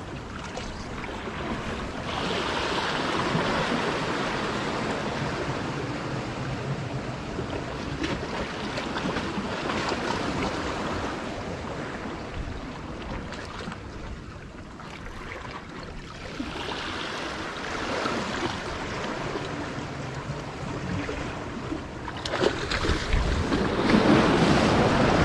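Sea waves surging and washing against the rocks of a jetty, swelling and ebbing every few seconds. A louder surge of splashing comes near the end.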